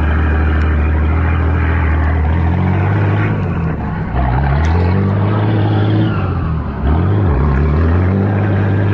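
Four-cylinder car engine running hard at high revs under load. It eases off briefly twice, about four and about seven seconds in, then pulls again.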